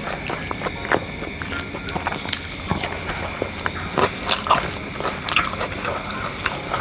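Close-up eating sounds: a person chewing and biting, with scattered irregular clicks and crunches. Under them runs a steady high-pitched hum.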